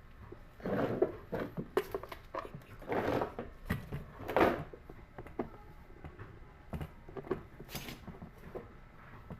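Handling noises from working on an electric kettle: irregular scraping and knocking with several sharp clicks, the loudest about four and a half seconds in.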